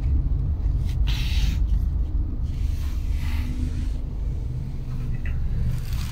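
Steady low rumble of a car's engine and road noise heard inside the cabin while driving, with a few brief swells of hiss from tyres or passing traffic.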